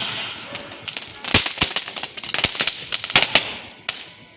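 Small ground firework (a 'chitput' crackling cracker) hissing as it burns, then firing a fast, irregular string of sharp pops and cracks for about two seconds, with one last crack near the end as the hiss dies away.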